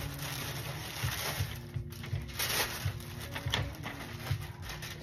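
Tissue paper crinkling and rustling as sneakers are unwrapped and lifted out of a cardboard shoebox, in irregular crackles with a louder rustle about halfway through, over a low steady hum.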